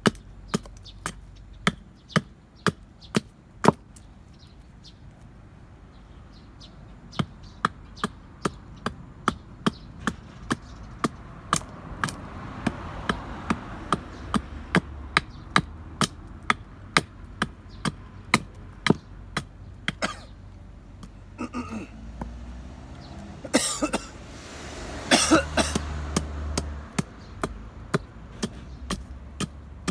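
Small hatchet chopping a short piece of wood stood on end on a log: quick light strikes at about two a second, with a pause a few seconds in. About three-quarters of the way through, a few louder rough rasping noises come in among the strikes.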